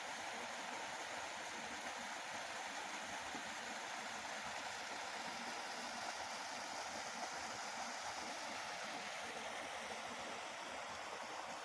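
Steady rush of flowing water, like a stream, even and unbroken.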